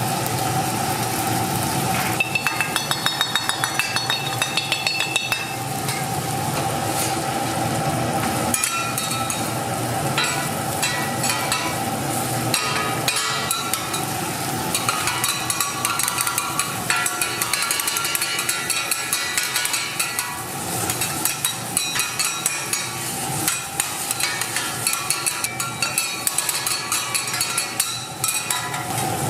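Metal spatulas tapping and scraping against a hot pan as egg fried rice sizzles, with a fast, even run of taps from about two seconds in until past five seconds, then scattered taps and scrapes.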